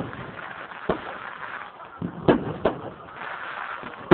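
Fireworks bursting: a string of sharp bangs, about a second in, twice in quick succession past the middle, and again at the end.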